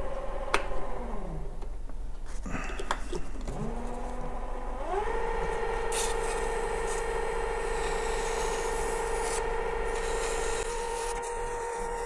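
Small metal lathe running, its motor whine rising in pitch about four seconds in as the spindle speeds up, then holding steady, with a couple of sharp clicks early on. From about six seconds, abrasive paper rubbing against the spinning knurled brass pin adds a steady hiss.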